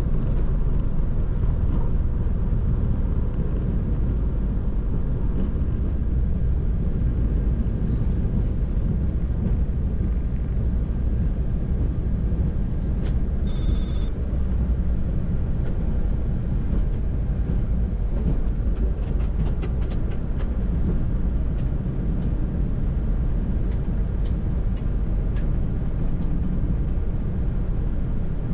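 Steady low rumble inside a Boeing 737-800 cockpit as the airliner rolls out and slows on a wet runway after landing. A brief high, bell-like ding sounds about halfway through, and a few light clicks come later.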